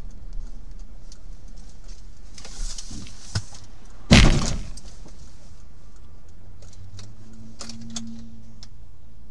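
Car collision heard from inside the dashcam car: a single loud crash of the impact about four seconds in, fading within half a second, over the steady hum of the car on the road. A short rushing hiss with a couple of light knocks comes just before the crash.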